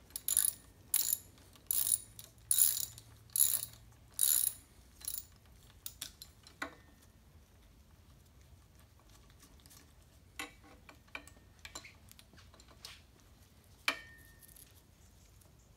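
Tripod head being adjusted by hand: a run of short ratcheting strokes under a second apart for about five seconds, then a few scattered clicks, the last near the end with a brief ring.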